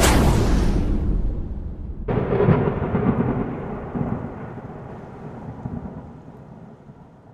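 Intro sound effect of thunder: a loud swell at the start, then about two seconds in a sudden thunder clap whose deep rumble slowly dies away.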